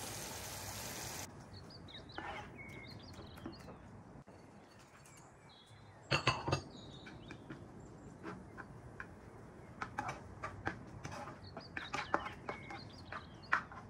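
Tomato sauce sizzling and simmering in a frying pan, an even hiss that stops abruptly after about a second. Then a spatula clicks, scrapes and taps against a non-stick frying pan as potato pieces are stirred into the sauce, with a cluster of loud knocks about six seconds in.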